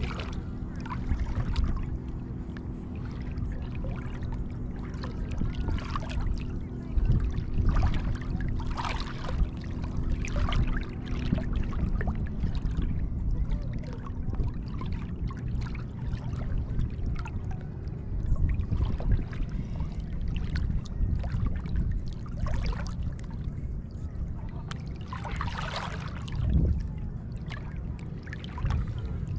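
Small waves lapping and splashing around a camera held at the water's surface, with a low wind rumble on the microphone. A boat engine's steady hum runs underneath and stops about twelve seconds in.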